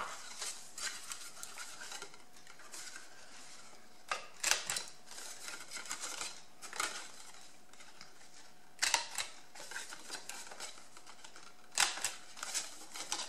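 A paper corner-rounder punch cutting the four corners off a sheet of scrapbook paper: four sharp clacks of the punch, each a quick double snap, spaced about two to three seconds apart.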